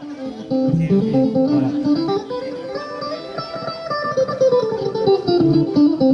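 Amplified plucked-string instrument, guitar-like, playing a melodic run through a PA during a band soundcheck. The notes climb and then come back down.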